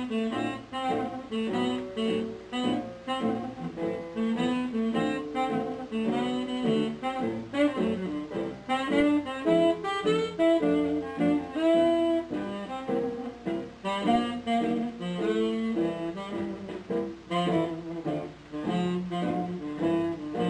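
Instrumental background music, a lively melody of quick changing notes over a bass line.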